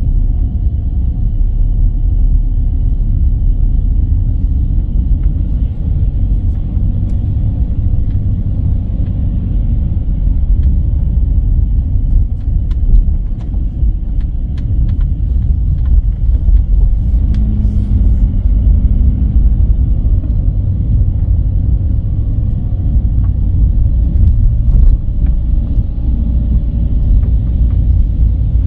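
Car driving along a road: a steady, loud low rumble of engine and tyre noise, with a few faint clicks.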